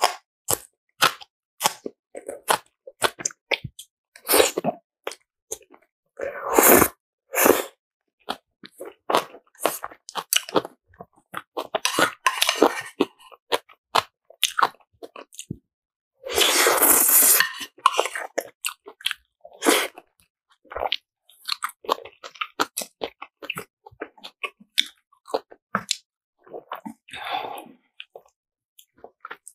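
Close-miked eating of spicy black bean ramen noodles: many quick wet chews and crunches, with a few longer slurps of noodles, the longest a little past halfway.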